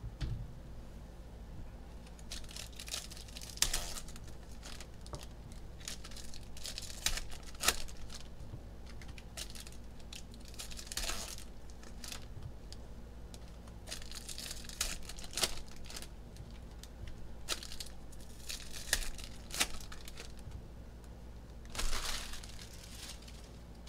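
Foil wrappers of Panini Mosaic football card packs being ripped open and crumpled, in irregular runs of crinkling tears with short pauses between, the loudest crinkle near the end.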